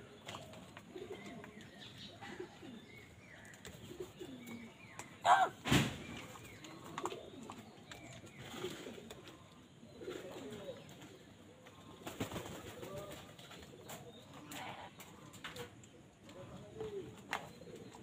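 A flock of house crows calling around a food bowl: many short, low calls, with one loud call rising in pitch about five seconds in.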